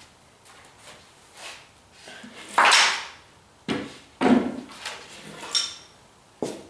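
Handling noise from a roll of aluminium foil tape: a few short rustles and knocks. The loudest is a half-second tearing rasp about two and a half seconds in, as a length of tape is pulled off the roll.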